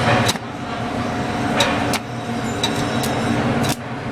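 Stick (shielded metal arc) welding arc crackling over a steady hum, with sharp pops every second or so.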